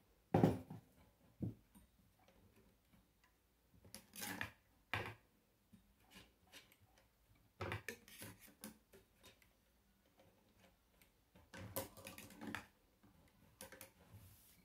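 Irregular faint clicks, taps and short rustles of a sewing machine's bobbin being swapped out after it ran out of thread, with no machine running.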